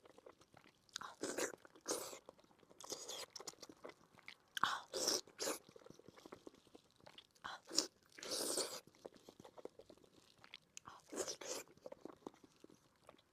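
Close-miked chewing of soft braised pork belly in spicy sauce, bites and mouth sounds coming in irregular bursts.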